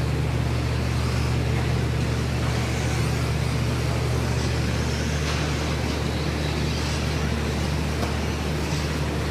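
Radio-controlled stock trucks racing on a dirt track, their faint motor whine and tyre noise over a steady low hum that does not change.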